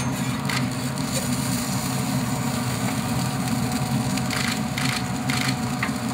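Metal tongs and spatula scraping and clicking on a grill's cooking grate as a whole chicken is lifted off, a few short scrapes about four to six seconds in, over a steady low mechanical hum.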